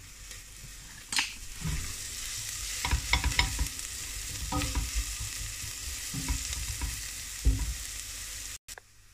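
Diced onions and tomato purée frying in oil in a non-stick saucepan, sizzling steadily, while a silicone spatula scrapes and knocks against the pan as they are stirred. The sizzle starts about a second in and cuts off suddenly near the end.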